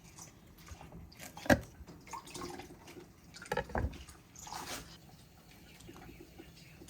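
A few sharp knocks of a knife on a cutting board while trimming peppers: one about a second and a half in, then three close together around three and a half seconds in, followed by a short rustle.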